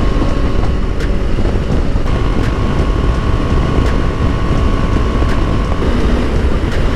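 Steady wind rush on the microphone from riding a KTM 390 Adventure motorcycle at highway speed, with the engine's steady drone underneath.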